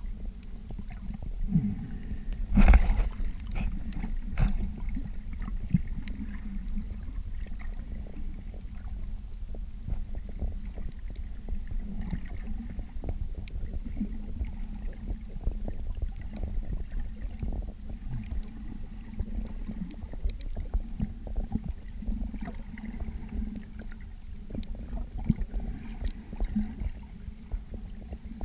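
Water noise heard underwater: a low, muffled rumble with many small scattered clicks and crackles, and one louder knock about three seconds in.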